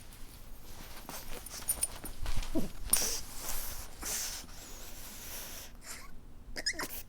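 Pug whimpering and weeping, with breathy, wheezy snuffles. A whine falls in pitch about two and a half seconds in, and short high squeaky whines come near the end.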